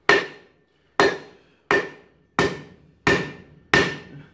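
Hand hammer striking a red-hot steel knife blank on an anvil face: about six blows at a steady pace, a little under a second apart, each with a short metallic ring. The blows are forging the blade's edge bevel by compression, the hammer swung in at an angle.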